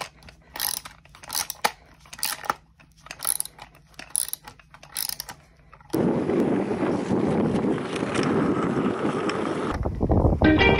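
A ratchet tool clicking in about seven short bursts as a bolt on a windsurf mast base is tightened. About six seconds in, this gives way to a steady rushing noise, and music starts near the end.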